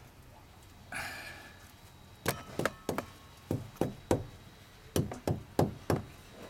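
A hand knocking on a timber boat plank: a run of short, sharp knocks, about three a second in short groups, starting just over two seconds in, testing the wood, which still sounds solid. A brief scrape about a second in.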